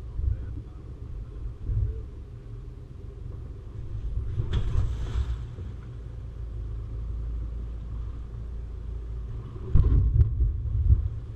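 Four-wheel-drive vehicle driving with a steady low rumble, a brief hissing rush about four and a half seconds in, and a run of heavy thumps near the end.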